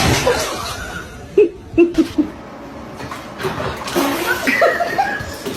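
A person laughing: four short bursts about a second and a half in, then a longer stretch of laughter near the end.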